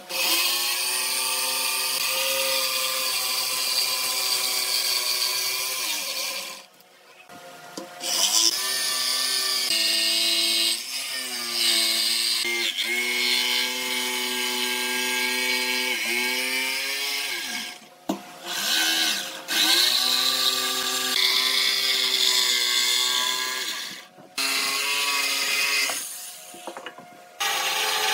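DongCheng DMQ85 corded jigsaw cutting a curved line through a pine board: a steady motor whine with the blade rasping through the wood. It stops several times for a second or so, its pitch falling as it winds down and rising as it starts again.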